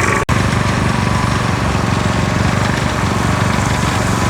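Engine running steadily at a constant speed on a concrete pour site, with a brief sudden dropout about a quarter second in.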